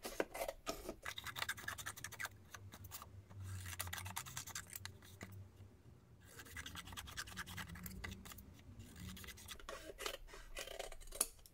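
Scissors snipping through a sheet of paper along a drawn border line: a quick, continuous run of small cuts, broken by two short pauses about a third and just over halfway through.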